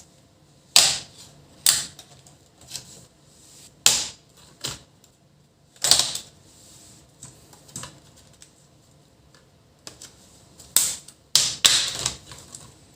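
Sharp plastic clicks and snaps, about a dozen at irregular intervals, as a plastic pry tool works around the seam of a laptop's case and its clips let go.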